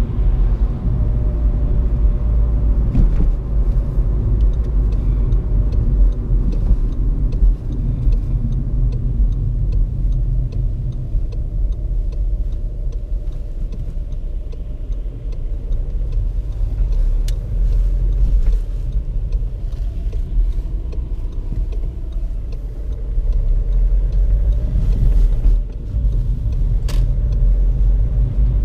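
Inside the cabin of a Seat Ibiza with a 1.6 TDI four-cylinder diesel on the move: a steady low rumble of engine and tyres on a wet road, with a faint engine drone that shifts in pitch as the car speeds up and changes gear. A sharp click sounds near the end.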